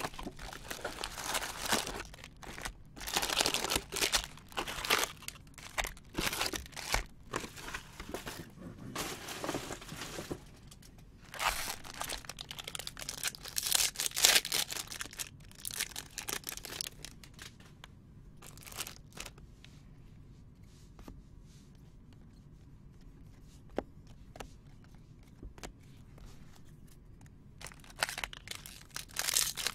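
Clear plastic shrink-wrap and foil card-pack wrappers crinkling and tearing in repeated bursts. About halfway through the handling goes quieter, with only scattered light rustles and clicks, before loud crinkling starts again at the very end.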